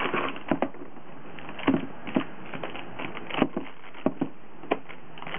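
Scattered short clicks and light knocks as a new HP dv2725la laptop is handled and its lid lifted open, over a steady hiss.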